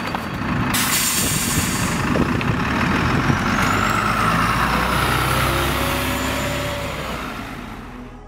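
Diesel bus at a stop: a short burst of air-brake hiss about a second in, then the engine running with a rising whine as it pulls away, fading out near the end.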